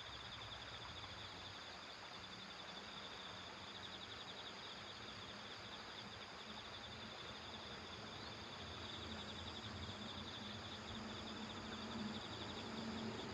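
Insects trilling steadily in a high, fast-pulsing buzz, with a faint low hum that grows a little in the second half.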